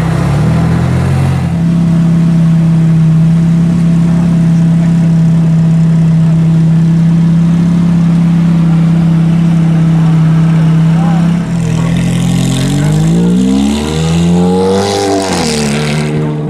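Decatted Ferrari F430 Spyder's 4.3-litre V8 running at a steady engine speed for about ten seconds, then revving up as the car pulls away. The pitch climbs, dips at a gear change and climbs again.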